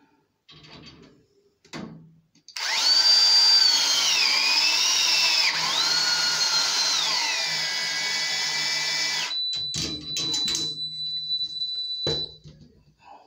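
Virax battery press tool crimping a copper press-fit elbow: its motor starts with a loud high whine about two and a half seconds in, the pitch dipping and recovering as it works, and stops after about seven seconds. Clicks and a thin steady high tone follow for a few seconds.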